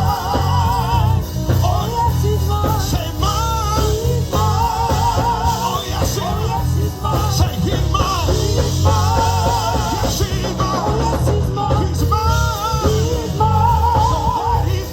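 Gospel band music: an organ plays quick, wavering runs over electric bass and a drum kit.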